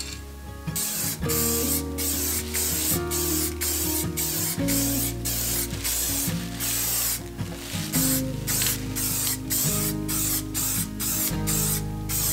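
Spray.Bike aerosol paint can spraying in many short bursts in quick succession, starting about a second in, each a brief hiss with a short gap between.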